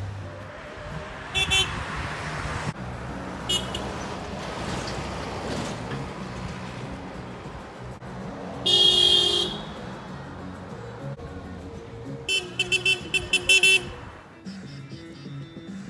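Car horns honking from passing cars: a short toot about a second and a half in and another about two seconds later, a longer, louder honk around the middle, and a quick run of about seven short beeps near the end, over passing traffic.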